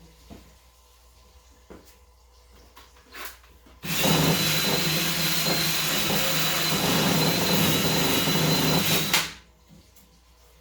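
A handheld power drill starts about four seconds in and runs steadily with a high whine for about five seconds, then stops sharply, scrubbing loose surface rust off a steel hood hinge. A few light clicks of handling come before it.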